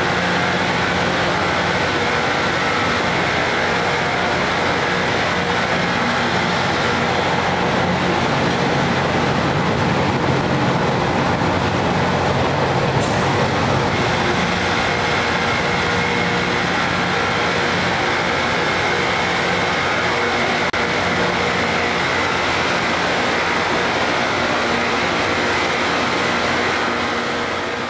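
Loram rail grinder at work on the rails: a steady, harsh rushing noise from the grinding stones on the steel rail, over the low drone of the machine's diesel engines. It fades out near the end.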